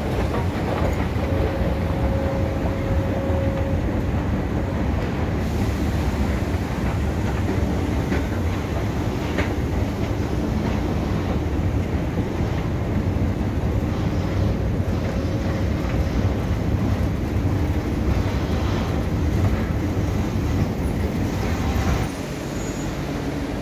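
Metro escalator running: a steady low rumble with faint clatter from the moving steps. The rumble drops off near the end as the ride reaches the top landing.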